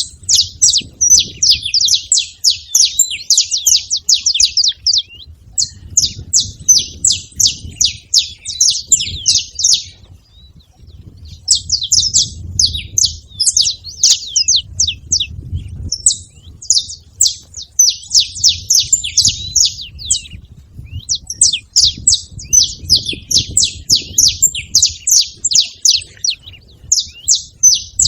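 Saffron finches singing in long runs of rapid high chips and trills, breaking off briefly every few seconds, with a low rumble underneath.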